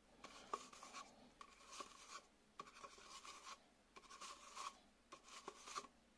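Faint handling noise from a hand turning and regripping a camcorder body, with soft rubbing scrapes and a few light clicks in several short bouts.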